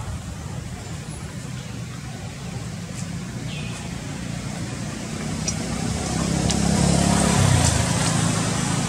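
Low rumble of a motor vehicle passing, building about five seconds in, loudest near seven seconds, then fading, with a few faint short high chirps over it.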